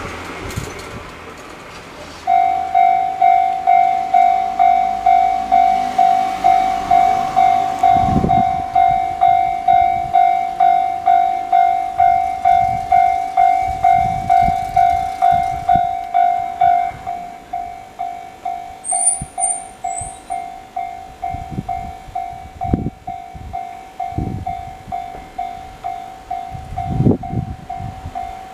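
Japanese railway level-crossing alarm ringing its repeated electronic 'kan-kan' bell, about two and a half strikes a second, starting about two seconds in and dropping to a softer volume about halfway through. A train runs through the crossing, its wheels thumping over the rail joints near the end.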